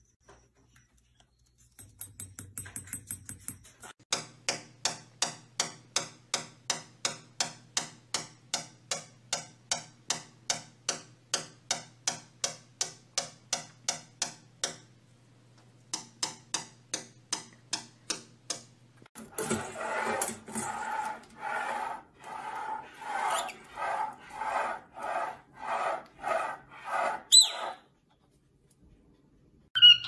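A pet parrot giving long runs of short, squeaky calls at about three a second, then a lower, rougher rhythmic chatter that ends in a quick rising whistle.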